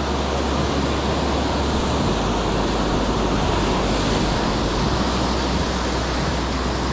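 Surf breaking and washing up a sandy beach, a steady rush of waves, with a low rumble of wind on the microphone.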